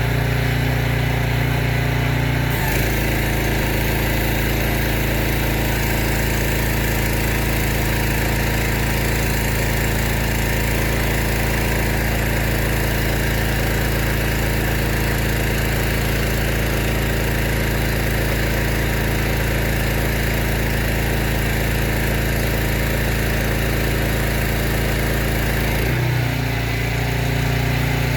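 Petrol engine of a Savi jet-wash pressure washer running steadily. Its note changes about two and a half seconds in and changes back near the end.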